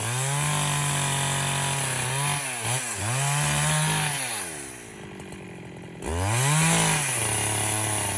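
Husqvarna 372 XP two-stroke chainsaw running at high revs, with brief dips in pitch. About halfway through the revs fall away to near idle for a second or so. The engine then snaps back up to speed and settles a little lower.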